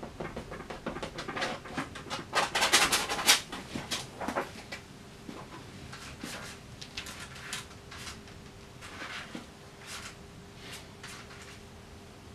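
Palette knife scraping and dabbing thick paint onto a large canvas in quick, rasping strokes for about the first four seconds, then only fainter, scattered scrapes and taps over a faint steady hum.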